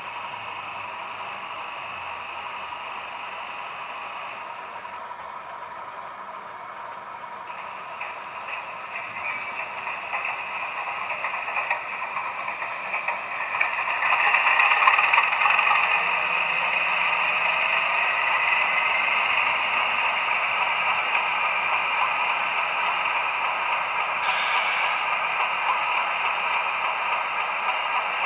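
A 00 gauge model BR class 31 diesel with a DCC sound decoder, playing the locomotive's engine sound through its small on-board speaker. The sound grows louder about halfway through, with a rising whine as it powers up, then runs on steadily. The model's wheels clatter on the track.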